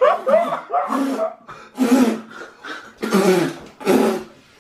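A man coughing and gagging in about five short fits, roughly one a second, after swallowing a revolting mixed drink.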